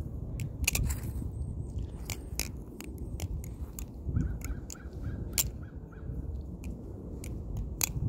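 Balisong (butterfly knife) being flipped: its handles and blade clack and click against each other in quick, irregular clicks, several in a second at times.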